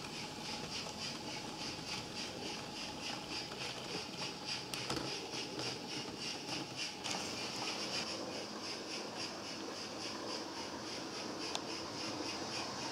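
HO-scale model train running along the layout track: a steady rolling noise with a fast, even pulsing, and a couple of sharp clicks partway through.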